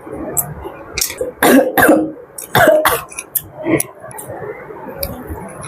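A person coughing hard several times in a quick fit, set off by the chili heat of spicy noodles being eaten.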